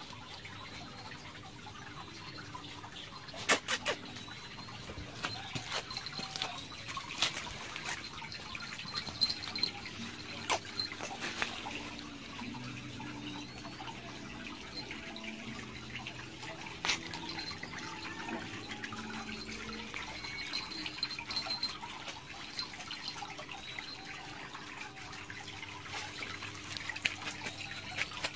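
Small jingle bell on a puppy's collar tinkling on and off as the puppy moves and plays, with scattered light clicks and scuffs.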